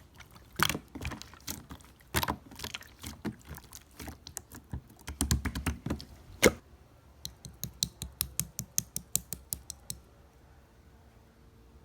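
Irregular tapping and clicking, then a fast, even run of clicks at about five a second that stops near the end.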